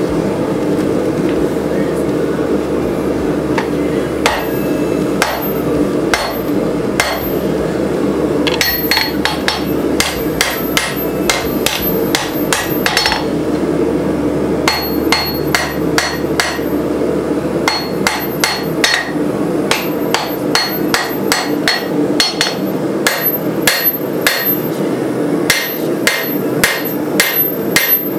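Hand hammer striking red-hot rebar on an anvil while forging a blade. A few scattered blows come at first, then quick runs of ringing strikes from about nine seconds in, with short pauses between the runs. A steady low hum runs underneath.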